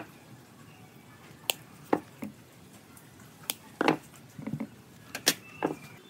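Irregular sharp taps and clinks of metal parts and hand tools being handled while a small air compressor is worked on, about eight separate knocks over several seconds.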